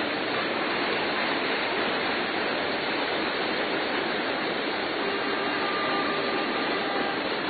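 Steady rushing of floodwater running through a flooded street.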